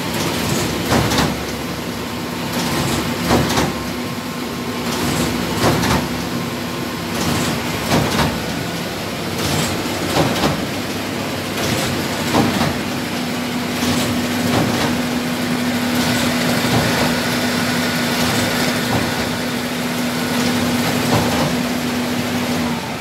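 Bourg BTS/BDF 20-station paper collating line running: a steady machine hum with a low tone, and repeated sharp clicks and knocks about once a second from the paper handling. The hum cuts off near the end.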